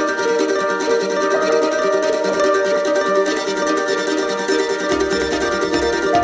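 Music led by a quickly plucked string instrument of the mandolin kind, playing a busy melody over held notes; a low pulsing beat comes in about five seconds in.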